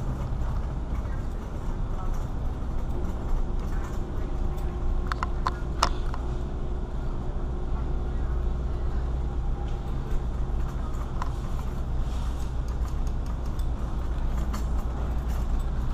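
Metal shopping cart rolling over a smooth store floor: a steady low rumble and rattle from the wheels and frame, with a few sharp clicks about five to six seconds in.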